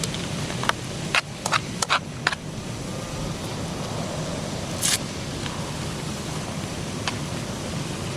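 Food frying in a pan on a camp stove: a steady hiss with several sharp clicks of a utensil against the pan in the first couple of seconds and a brief scrape near the middle.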